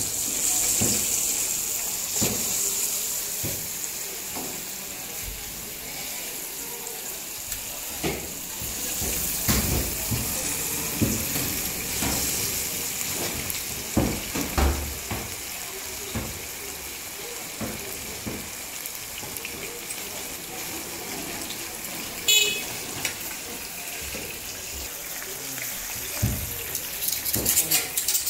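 Marinated chicken pieces shallow-frying in hot oil on a large flat griddle: a steady sizzling hiss, loudest just after the pieces go in and slowly dying down, with occasional knocks.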